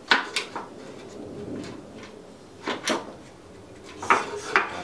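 Sharp metal clicks and knocks from handling a mower's self-propel transmission and its belt pulley while unhooking the drive cable, in three pairs: near the start, about three seconds in, and near the end.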